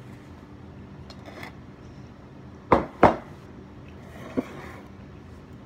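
Two sharp clinks of an eating utensil against a dish in quick succession, then a lighter tap about a second and a half later, over a low steady background hum.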